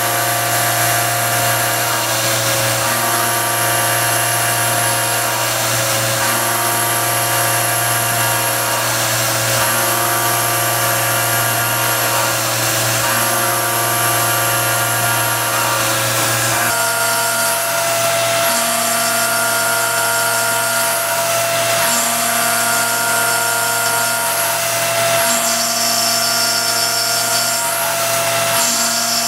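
A CNC milling machine, a converted RF45 mill, cutting panels into a 1911 pistol slide with a small end mill: a steady machining whine made of several tones that shift every few seconds as the cut goes on. The mix of tones changes about two-thirds of the way through.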